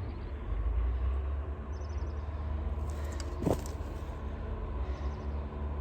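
Steady low rumble, with faint bird chirps twice and a single short click about three and a half seconds in.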